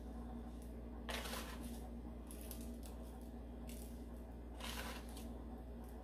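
Breadcrumbs pinched from a plastic container and sprinkled by hand over a shredded-cheese topping: a few brief, faint rustles, over a low steady hum.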